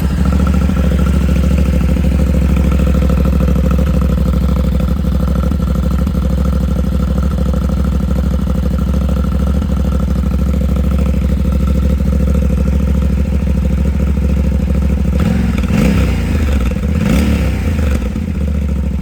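2026 Yamaha Tenere 700's parallel-twin engine running through its stock exhaust with the baffle installed, idling steadily, then revved briefly twice near the end.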